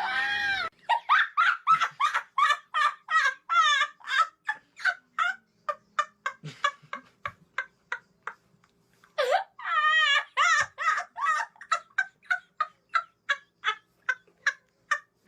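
Domestic fowl calling in two long runs of short repeated clucks, about three or four a second. Each run opens with a longer wavering call, and the second starts about nine seconds in after a short pause.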